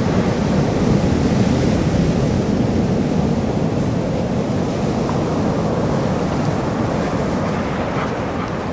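Heavy ocean surf breaking in a steady low rush, with wind buffeting the microphone.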